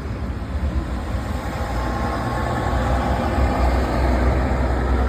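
Motor vehicle engine running with a steady low rumble, over a hiss of street noise.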